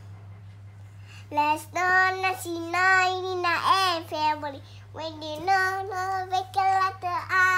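A child singing in a high voice, a string of short phrases of held, steady notes starting about a second in, like a phonics chant.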